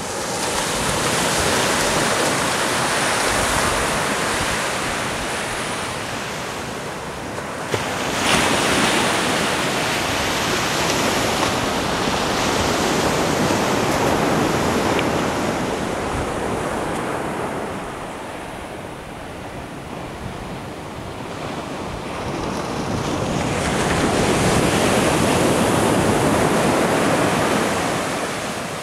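Surf breaking and washing up a sandy beach, a steady rushing noise that swells and fades in long surges, with a sudden rise about eight seconds in. Wind buffets the microphone.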